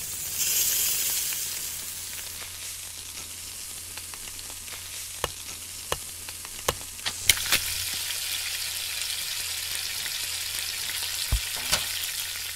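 Sizzling of food frying in a hot pan: a steady hiss with scattered sharp pops and crackles. It is louder in the first second or so, settles, and grows louder again about seven seconds in.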